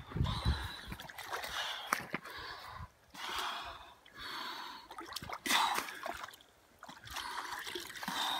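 A person breathing hard in a series of loud, deep breaths in and out while lowering into ice-cold water, with some water splashing and trickling. This is the forced breathing of cold-water immersion.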